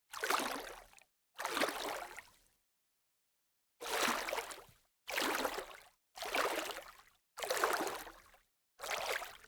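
Sea water sloshing in short bursts, about seven of them, each starting suddenly and fading within about a second, with dead silence between them and a longer pause about three seconds in.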